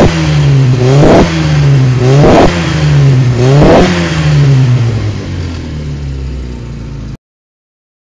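Mini Cooper's engine being revved in four quick throttle blips about a second apart, each rising sharply and falling back more slowly. It then settles back toward idle and cuts off suddenly about seven seconds in.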